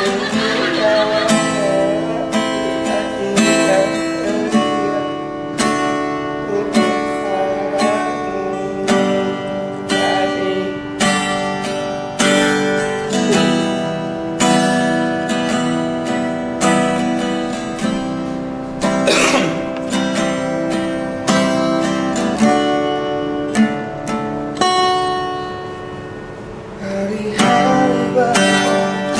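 Acoustic guitar strumming chords in a steady, even rhythm.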